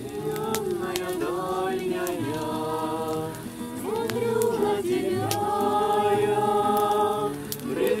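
A group of voices singing a song together to a strummed acoustic guitar, the singing growing louder about halfway through.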